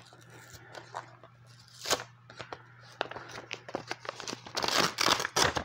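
Paper rustling and crinkling as a manila envelope is opened and heat-transfer sheets are handled, with scattered light clicks, a sharp tap about two seconds in and a louder stretch of rustling near the end. A low steady hum runs underneath.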